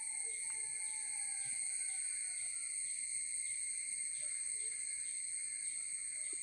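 Chorus of insects such as crickets: a steady high-pitched buzzing from several insects at once, one of them pulsing about twice a second.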